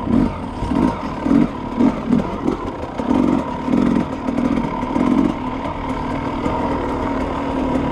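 Two-stroke enduro dirt bike engine being ridden, the throttle opened and closed in short repeated bursts so the engine note swells and drops every second or so.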